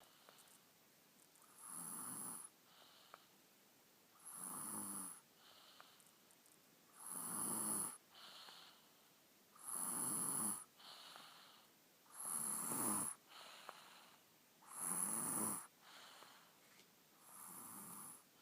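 A sleeping boy snoring steadily: seven snores, one about every two and a half seconds, with softer breaths between them.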